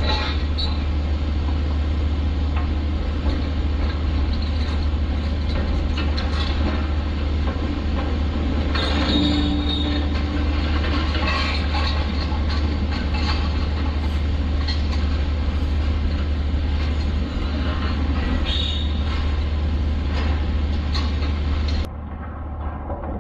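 Strong wind buffeting the microphone: a steady, heavy low rumble with a rushing hiss over it, dropping off abruptly near the end.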